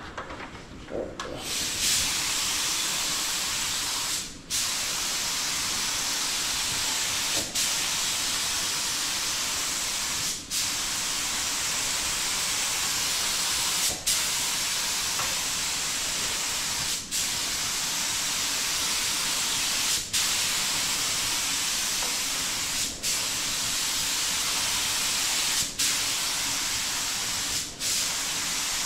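Compressed air hissing steadily from a gravity-feed paint spray gun spraying paint in long passes. The hiss starts about a second in and drops out briefly every three seconds or so as the trigger is let go between passes.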